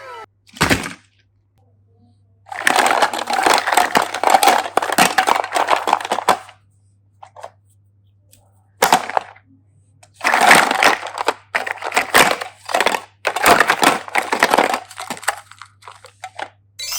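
Kinder surprise eggs being unwrapped and cracked open by hand: crinkling and crunching in two long bursts, with a few sharp cracks between them.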